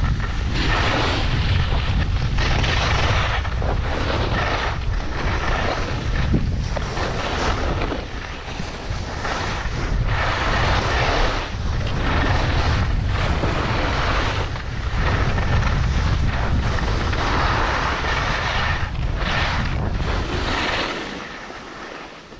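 Wind rumbling on the microphone of a skier going downhill, with the hiss of skis on snow swelling and fading with each turn. It drops away near the end as the skier comes to a stop.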